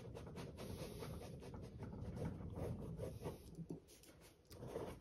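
Pen scratching on sketchbook paper in many short, quick strokes, drawing the tread marks of a track. It is faint, with a brief pause a little before the end.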